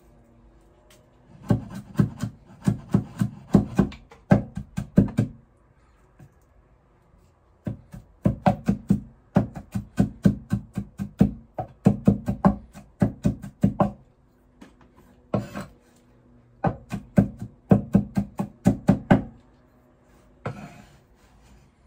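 Cleaver chopping on a wooden cutting board, mincing food in three runs of quick even strokes, about four a second, with short pauses between the runs.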